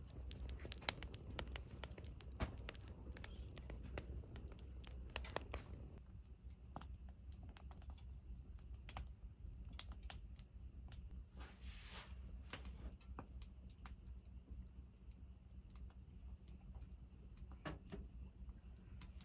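Irregular light clicks and taps of small objects being handled, more frequent in the first six seconds, with a brief rustle about twelve seconds in.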